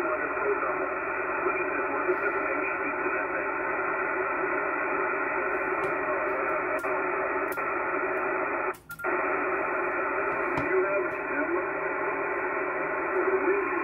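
Kenwood HF transceiver's receiver audio on the 75-meter band: steady static hiss from a quiet band with a few faint steady tones in it. The sound cuts out briefly about nine seconds in.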